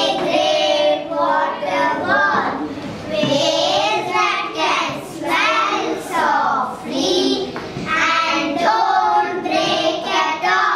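A group of young children reciting a rhyming poem together in unison, in phrases with short breaks between lines.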